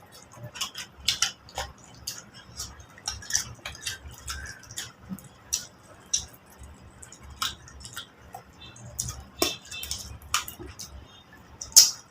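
People eating chicken: irregular chewing and mouth clicks with scattered light taps and clinks of plates, a sharper click about twelve seconds in.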